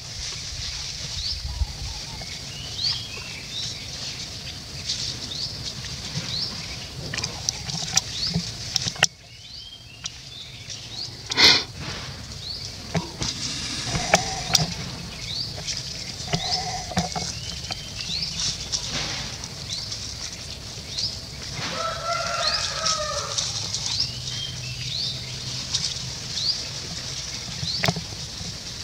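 Outdoor animal ambience: many short, high, rising bird chirps repeat throughout, with a few lower animal calls around the middle. A sharp knock about eleven seconds in is the loudest sound, and the background changes abruptly about nine seconds in.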